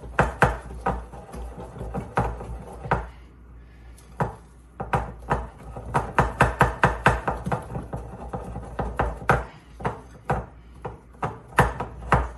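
A metal fork beating thick corn dog batter in a glass bowl, clinking against the glass in quick, uneven runs of taps, with a short lull about three seconds in.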